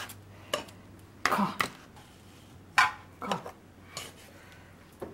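Kitchen clatter of chopsticks, utensils and pans while food is packed into a lunch box, with one sharp clack near the middle. Among the clatter are a few short voice-like sounds that fall in pitch, over a faint steady hum.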